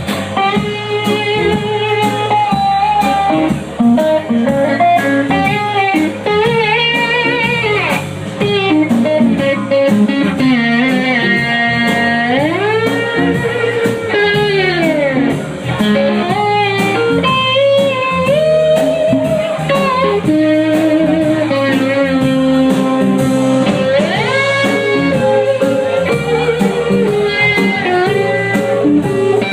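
Live blues band playing an instrumental break: an electric guitar solo with notes that bend and glide, over bass and a steady drum beat.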